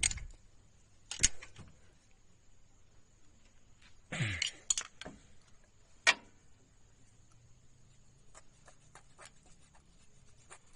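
Spanner and feeler gauge clinking against the rocker arms and adjusting screws of a Maruti Suzuki Alto's three-cylinder engine while the tappet clearance is set. There are a few sharp metallic clicks, the loudest about a second in and about six seconds in, a brief scrape about four seconds in, and faint ticking between.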